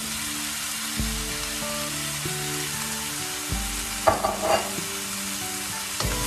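Sliced chayote squash hitting hot oil in a wok with diced tomato and onion, frying with a steady sizzle. A brief clatter of pieces about four seconds in.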